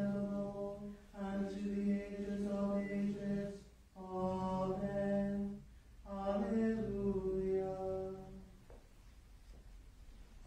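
Unaccompanied liturgical plainchant of the Vespers office, sung on a steady reciting tone in phrases of a second or two with short breaths between them; the pitch moves at a phrase ending around seven seconds in. The singing stops about eight and a half seconds in.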